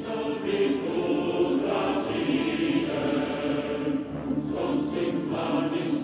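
Television programme opening theme music, sustained and layered with choir-like voices.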